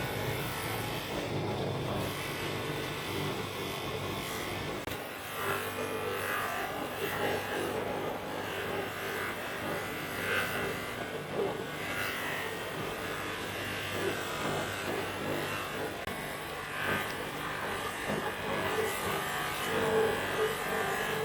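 Small handheld electric tool running steadily, its motor buzzing, with a rougher grinding sound that swells and fades every second or two.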